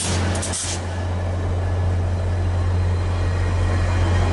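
Diesel locomotive engine idling: a steady low hum under a haze of mechanical noise.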